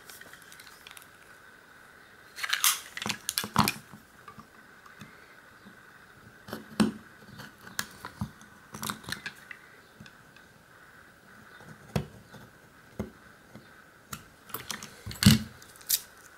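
Hands handling a lock cylinder, its key on a ring and picking tools on a rubber mat: scattered small metallic clicks and taps, with a cluster of clicks about three seconds in and the loudest knock near the end.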